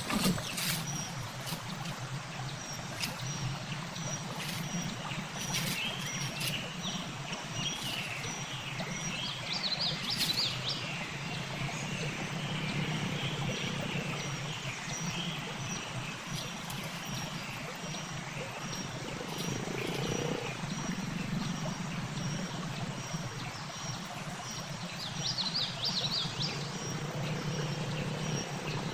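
Outdoor natural ambience: a steady low hum of wild animals under a faint, regularly repeated high call, with short bursts of quick bird chirps twice.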